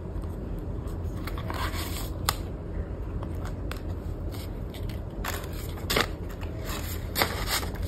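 Paper banknotes and a clear plastic zipper pouch being handled, making crinkling rustles and light clicks. A few sharper crackles come in the second half, over a steady low hum.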